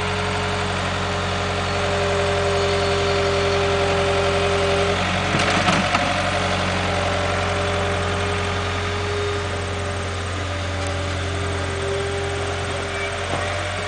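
Caterpillar skid steer loader's diesel engine running steadily, with a whine over it that shifts in pitch now and then. A brief clatter about five or six seconds in is the loudest moment.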